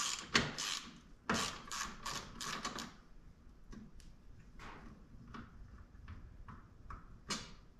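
Socket ratchet clicking as a bolt is backed out of the seat's recliner mechanism: quick runs of sharp clicks in the first three seconds, then slower, fainter ticks, with one louder click near the end.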